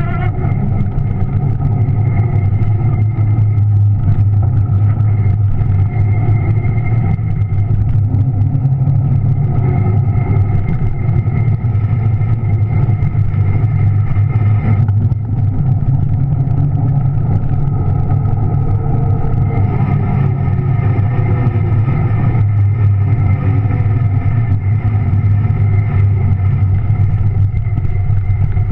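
Juiced RipCurrent S e-bike's electric motor running under way, a loud low rumble with a steady whine over it, carried straight into the camera through a rigid aluminium handlebar mount. It dips briefly about halfway through.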